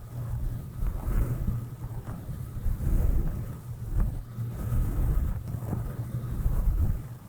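A soft brush stroked over the microphone, giving low rumbling swishes that swell and fade in uneven strokes.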